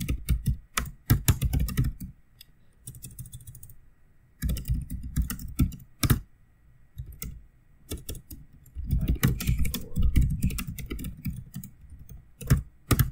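Typing on a computer keyboard: short runs of rapid key clicks with brief pauses between them. The longest and densest run comes about two thirds of the way through.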